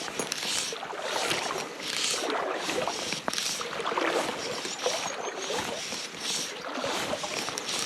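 A person wading through a river, the water sloshing around their legs with each step, about once a second.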